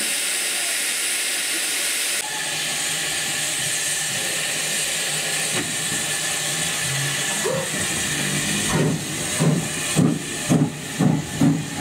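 Andrew Barclay 0-4-0 saddle-tank steam locomotive (No. 2217 of 1947) hissing steam steadily, then starting away with exhaust chuffs that begin about three-quarters of the way in and quicken to about two a second.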